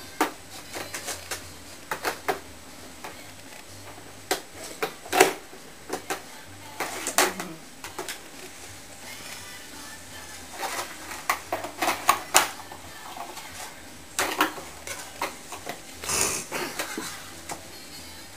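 Hard plastic baby toys and stacking rings being handled and knocked together: irregular clicks and clacks, the loudest knock about five seconds in, with clusters again around twelve and sixteen seconds.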